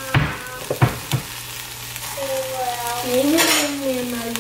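Shredded jackfruit, garlic and onions sizzling in oil in a frying pan while being stirred, with a few sharp knocks of the utensil against the pan in the first second. A long wavering tone sounds over the sizzle from about halfway.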